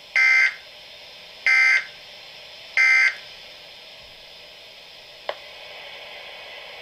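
Three short, identical buzzy bursts of SAME digital data tones from a weather radio broadcast, each about a third of a second long and spaced a little over a second apart, typical of the end-of-message signal that closes an alert. Steady receiver hiss fills the gaps, with a single click about five seconds in.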